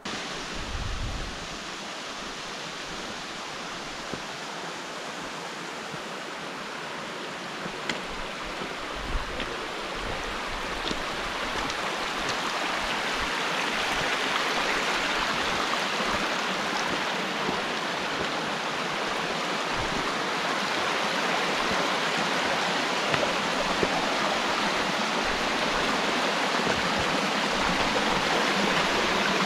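Mountain meltwater rushing steadily, getting gradually louder, with a few faint clicks and low thumps about a third of the way in.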